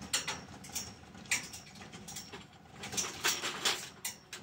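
Plastic sheeting on a greenhouse hoop frame rustling and crackling as it is handled, in several short irregular bursts, the loudest cluster about three seconds in.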